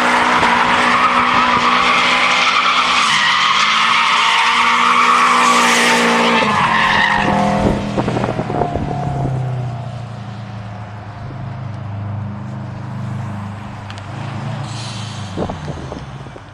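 A car engine held at high revs while the tyres squeal in a burnout or drift, for about seven seconds. The revs then drop, with a few sharp exhaust pops, and the engine settles into a lower rumble until the sound cuts off abruptly.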